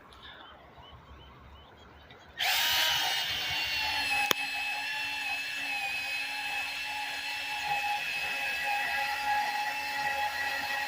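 Portable band saw starting about two seconds in and running steadily with a high whine, cutting into the metal of an old rusty bicycle; a single sharp click a little after it starts.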